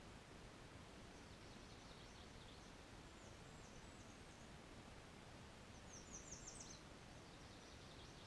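Faint, high-pitched songbird song: short runs of quick notes, some falling in pitch, repeated four times over a low steady hiss.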